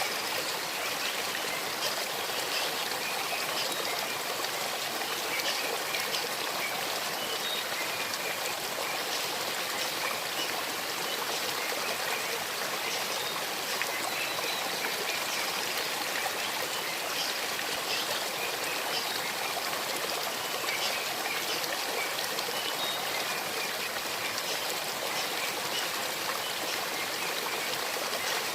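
A small stream babbling and trickling steadily over stones.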